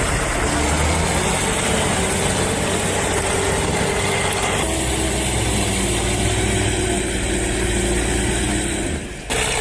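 Heavy vehicle engine running steadily, its sound shifting about halfway through.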